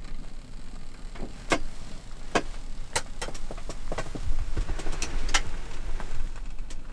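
Portable gas burners running with a low steady rumble under a steaming pot of soup and a clay donabe pot of chestnut rice, with irregular small clicks and pops, most of them in the middle few seconds.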